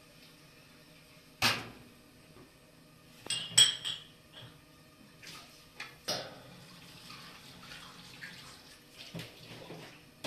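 Dishes being washed by hand in a steel sink: a few sharp clinks and knocks of crockery, the loudest about three and a half seconds in with a brief high ring.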